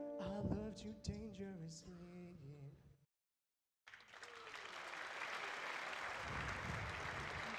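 A voice and grand piano end a song and fade away. After a brief dead gap, an audience applauds, steady and full, from about four seconds in.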